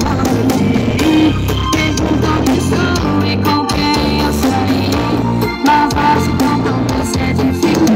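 A song played loud through a car-audio sound trailer's wall of subwoofers, horn drivers and tweeters: heavy bass under guitar and a steady drum beat.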